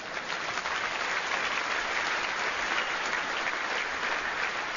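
Large theatre audience applauding, swelling toward the middle and then slowly easing off.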